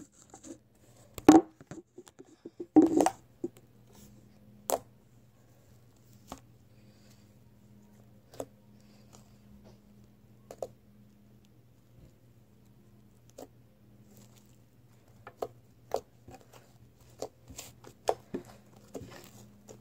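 Hands working homemade fluffy slime: scattered short squishes and pops, loudest in the first few seconds and bunching up again near the end, over a faint steady low hum.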